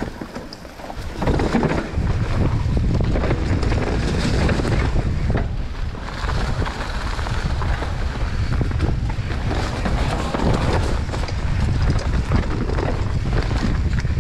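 Wind buffeting the camera's microphone as a mountain bike descends a dirt trail, jumping up about a second in as the bike gathers speed. Through it comes the rumble and rattle of the tyres and bike over bumps and roots.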